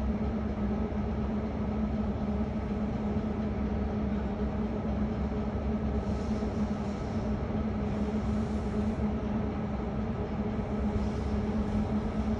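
DD55 diesel shunting locomotive running at low speed with a steady engine drone, hauling a rake of tank wagons.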